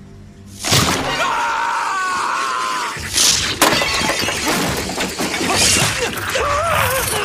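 A sudden loud crash of shattering glass and breaking debris, followed by more crashes and sharp impacts, with people yelling in alarm.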